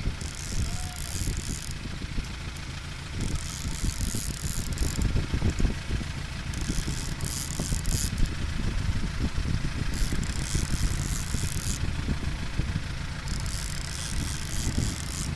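Fishing boat's engine running steadily at trolling speed, a low rumble, with a high hiss that swells and fades about every three seconds.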